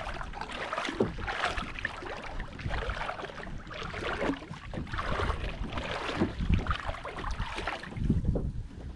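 Water splashing and lapping irregularly against the plastic hull of a tandem fishing kayak under way.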